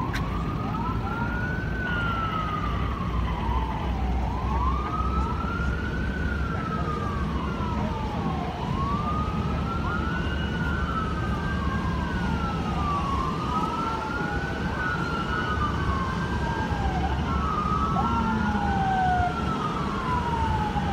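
Several emergency-vehicle sirens wailing at once, each slowly rising and falling in pitch over about four seconds, out of step with one another, over a low steady rumble.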